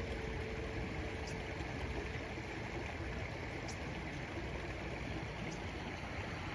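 Steady rush of spring water running out of a stone wall.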